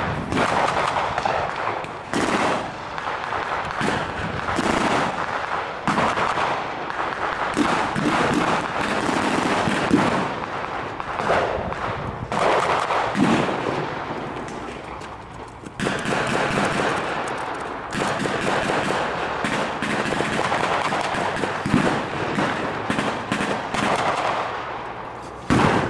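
Battle-reenactment gunfire with blank rounds: scattered rifle shots and machine-gun bursts, coming irregularly throughout.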